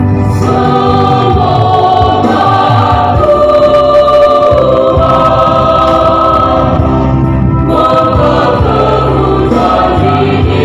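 Mixed choir of women and men singing a church hymn in parts, holding long chords.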